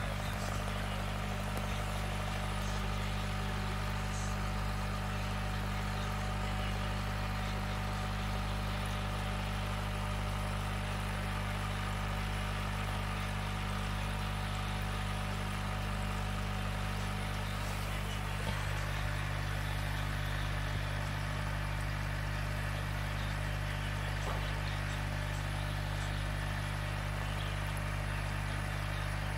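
Steady low hum of running aquarium equipment such as an air pump, with an even hiss above it.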